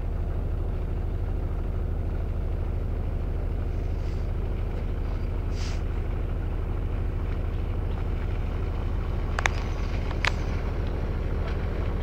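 A tour boat's engine droning steadily, heard from on board, a low, even hum with no change in speed. Near the end there are two brief sharp clicks.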